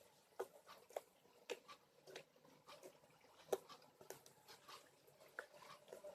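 Faint, scattered clicks and soft squishes from slime and its tubs being handled, about seven spread unevenly, over near silence.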